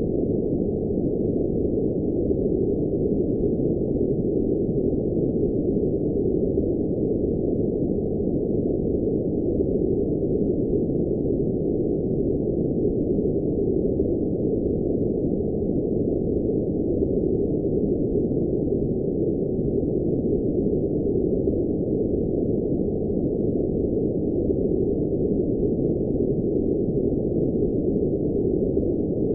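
Steady synthetic background noise, labelled blue noise, with no high hiss at all: an even, muffled rush that never changes.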